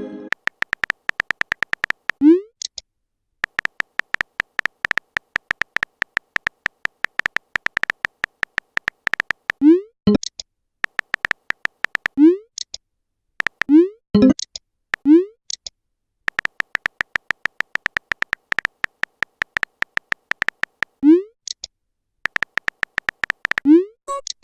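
Chat-story message sound effects: runs of rapid electronic typing clicks, about ten a second, broken every few seconds by a short rising pop as a message appears.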